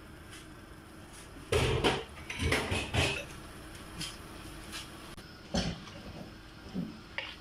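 Kitchen knocks and clatter: a quick run of loud knocks about a second and a half in, then a few single knocks as a wooden spatula stirs stir-fried vegetables in a frying pan on the gas stove.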